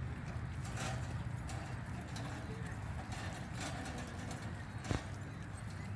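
Steady low rumble with scattered light clicks and one sharper knock near the end.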